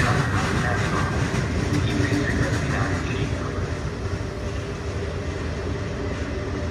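Regional passenger train running along the platform, a continuous sound of wheels and running gear with a faint steady hum, gradually getting quieter.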